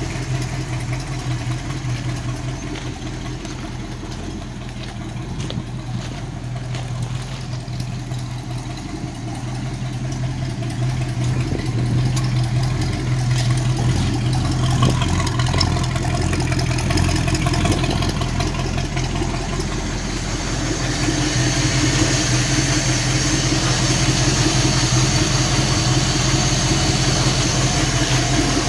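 Leyland P76 V8 engine in a VW Beetle rally car, idling steadily. It grows louder about ten seconds in and again about twenty seconds in.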